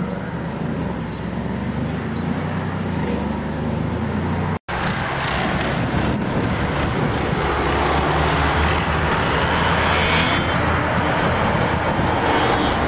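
Audi A8 sedans driving on a road: a steady low engine note, a brief total drop-out of sound about four and a half seconds in, then engine and tyre noise building as the camouflaged A8 prototype approaches.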